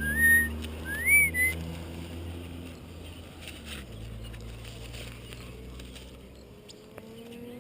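Two short, clear whistles, the second sweeping up and then down, of the kind used in calling back a pet African grey parrot. A low engine hum runs underneath.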